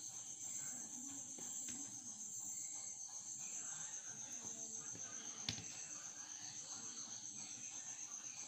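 Cricket chirping in a steady, high-pitched pulsing trill, with a single light click about five and a half seconds in.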